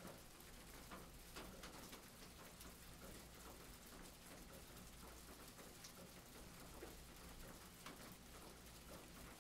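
Faint rain pattering: a soft, even hiss with scattered light ticks of drops.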